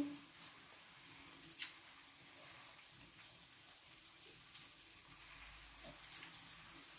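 Garlic cloves being peeled by hand: a few soft clicks and crackles of papery skin over a faint, steady hiss.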